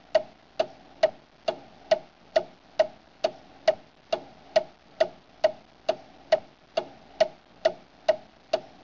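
Steady clock-like ticking, a little over two evenly spaced ticks a second, each a sharp click with a short wooden-sounding note.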